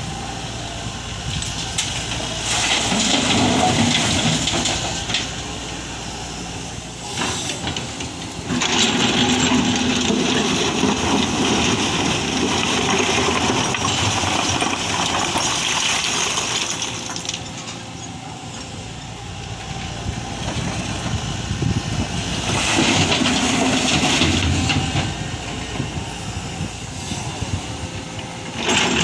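Tata Hitachi ZAXIS 120H excavator at work: its turbocharged Isuzu diesel running under load, with stone rattling and scraping as it is dug and loaded into a truck. The noise swells loud three times, near the start, through the middle and near the end.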